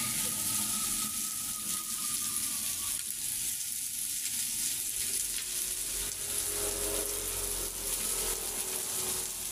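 Meat sizzling on a round electric sac griddle: a steady, even hiss of frying.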